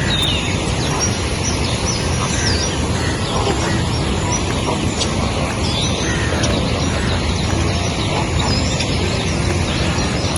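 Many birds chirping and whistling in short, high calls scattered throughout, over a steady background noise.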